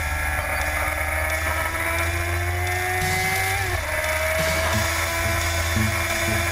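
A 2001 Kawasaki ZX-6R's inline-four engine running hard under acceleration. Its pitch climbs, drops sharply at an upshift a little under four seconds in, then climbs again, with wind noise on the microphone.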